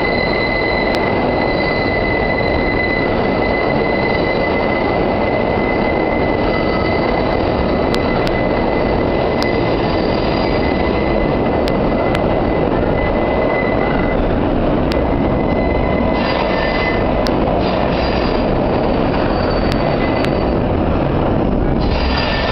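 New York City subway 5 train's wheels squealing on the tight curve of the South Ferry loop: a loud, steady, high-pitched squeal over the train's rumble. About sixteen seconds in, the continuous squeal breaks into shorter squeals, with scattered sharp clicks throughout.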